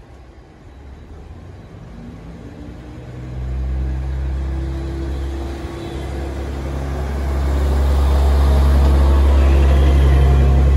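KiHa 40-series diesel railcar moving close past under power, its diesel engine giving a low, steady drone that swells from about three seconds in and keeps getting louder.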